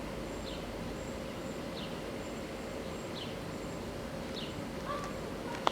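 Steady outdoor background noise with a small bird repeating a short, high, falling chirp about every second and a half, and one sharp click near the end.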